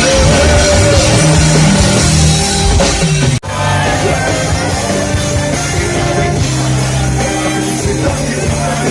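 Live rock music from an amplified stage band, with some singing. It breaks off for an instant about three and a half seconds in, then carries on.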